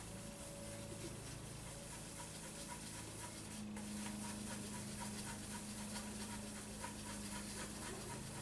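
Cloth rubbing briskly back and forth over a shiny ABS plastic telephone casing, polishing it with T-cut: a faint, rhythmic rasp of a few strokes a second over a steady low hum.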